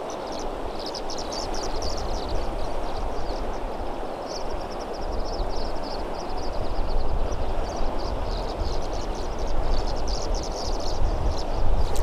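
Fast, high river current rushing steadily, with a low rumble underneath and quick high chirps coming and going over it.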